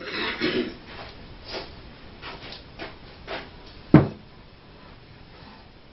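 Wooden 2x4 table leg being handled on a workbench: rustling and several light wooden knocks as it is picked up and moved, with one sharp knock about four seconds in.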